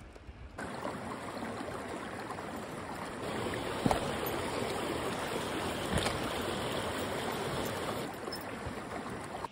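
Steady rush of running water, a mountain stream flowing among boulders, with two boot steps knocking on rock.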